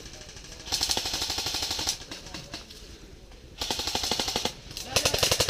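Airsoft guns firing on full auto in three rapid bursts: one about a second long starting just under a second in, then two shorter bursts close together in the second half.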